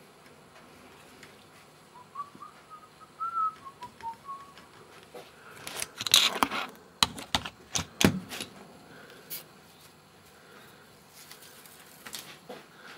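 A person whistling a few short wavering notes, followed by a cluster of sharp knocks and clatter from handling, which is the loudest sound, with a few faint knocks near the end.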